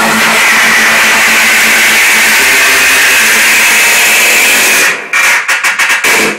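Hardstyle dance music played loud over party speakers, heard as a dense noisy wash with no clear beat. About five seconds in, it cuts out and back in several times in quick succession.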